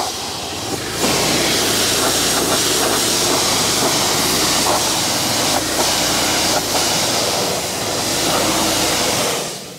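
Generac 3100 PSI gas pressure washer running, with the loud, steady hiss of high-pressure water spray. The sound fades out near the end as the engine shuts down, which the owner puts down to a fuel problem.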